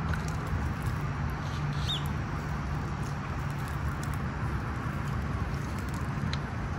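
Outdoor ambience in a park: a steady low rumble of background noise with a faint constant hum, and a single short high chirp about two seconds in.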